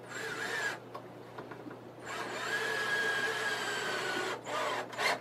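Cordless drill driving a screw into a pine 2x4 frame: a short burst, then a longer run of about two and a half seconds with a steady whine that sags slightly near its end, then a few quick short bursts.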